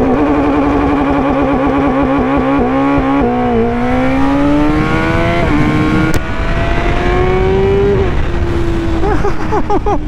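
Superbike's four-cylinder engine held at a fixed rpm by launch control with a rapid warble, then launching about three seconds in. The revs dip, then climb, with an upshift near five and a half seconds and another near eight seconds, the pitch dropping at each before it runs on steadier.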